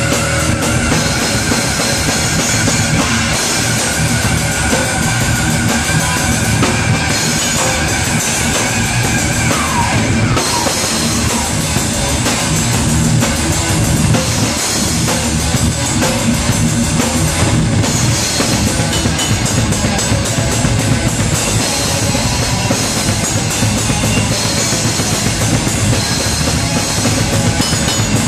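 A rock band playing loud, heavy music live, heard from beside the drum kit, so the drums sit loud in the mix with dense, steady hits throughout. A long held high note rings over it and slides down and away about ten seconds in.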